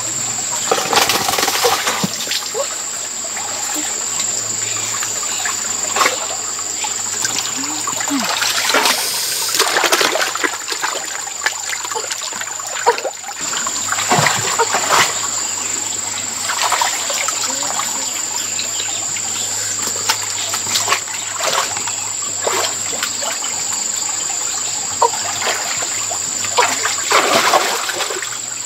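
Shallow muddy stream water splashing in repeated short bursts as hands grope through it to catch fish, over a steady trickle of running water.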